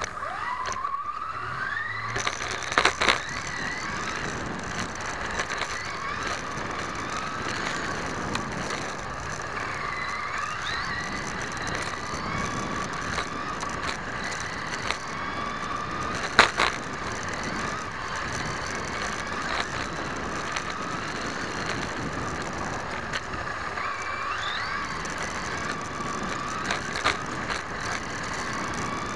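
Team Associated SC10B electric RC short course truck driving, heard from on board: its motor and gears whine, rising and falling in pitch with the throttle, over a steady rush of tyre and road noise. A few sharp knocks cut in as it hits bumps, the loudest about sixteen seconds in.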